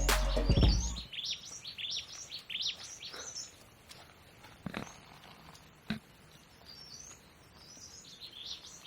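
Background music ends about a second in, then small birds chirp in short, high, repeated calls, with a couple of soft clicks.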